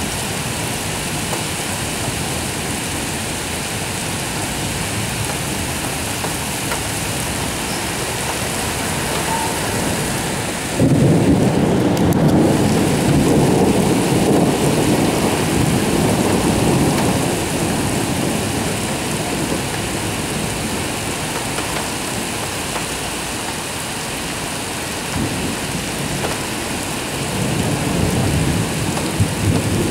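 Steady rain falling during a thunderstorm. A little over a third of the way through, thunder breaks in suddenly and rumbles for about six seconds before fading. Another rumble of thunder builds near the end.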